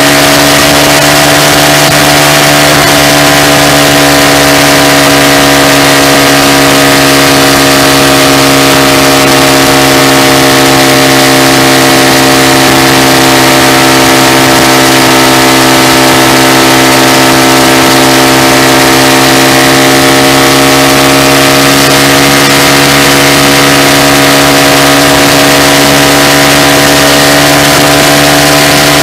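2014 Honda Grom's 125cc single-cylinder four-stroke engine running loud through a Yoshimura full exhaust system, heard right beside the muffler while riding at a steady speed. The pitch sags a little midway and climbs back near the end.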